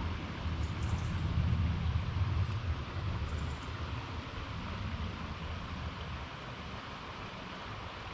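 Steady rush of river water with an uneven low rumble of wind on the microphone, strongest in the first few seconds.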